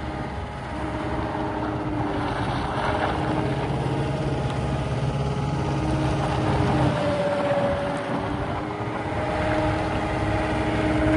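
2017 CAT 272D2 skid steer's diesel engine running steadily, its pitch shifting up and down a little partway through.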